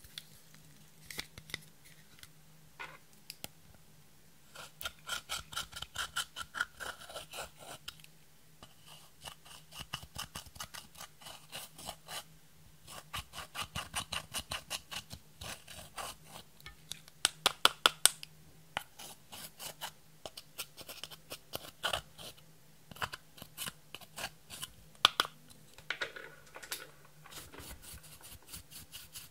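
Pressed eyeshadow being crushed and scraped in its plastic palette pans with a pointed tool: quick runs of small scratching, crunching clicks, with a short burst of louder taps past the middle.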